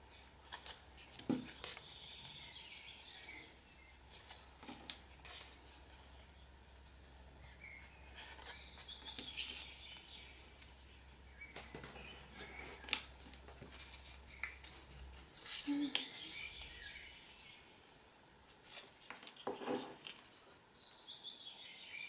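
Faint scratching, rustling and small clicks of hands working a dried cold porcelain petal with a metal-tipped modelling tool, curling its edge. A faint low hum stops about two-thirds of the way through.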